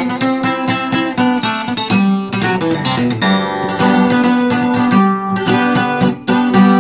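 Twelve-string acoustic guitar (docerola) being played: quick picked and strummed chords that ring on, with no singing.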